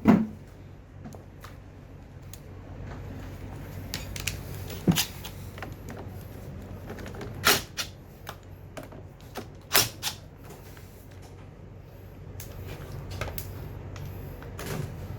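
Scattered sharp clicks and knocks of tools and parts being handled, spaced a few seconds apart, over a steady low hum.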